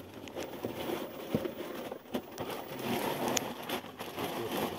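Rustling and handling noises with a few sharp clicks and knocks, as bags and gear are unwrapped and moved about while a vehicle's rear compartment is searched.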